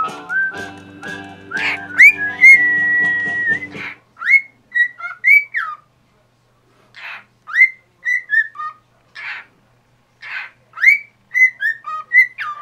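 Pet cockatiel whistling: a string of short rising whistled notes and one held note, mixed with scratchy chirps. Music plays under it and stops about four seconds in, leaving the bird's whistles and chirps alone.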